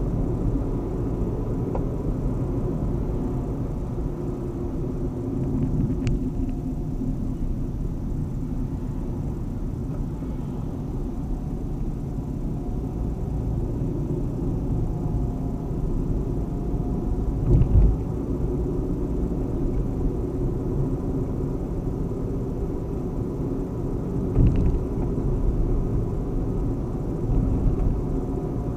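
Car driving on a city road, heard from inside the cabin: a steady low rumble of engine and tyre noise, with two brief louder low thumps a little past the middle and again near the end.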